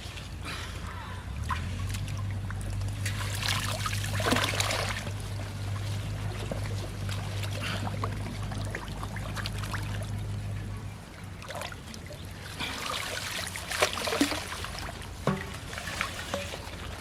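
Shallow water splashing and sloshing in two longer bursts, about four seconds in and again about thirteen seconds in, with scattered small knocks and a low steady hum that stops about eleven seconds in.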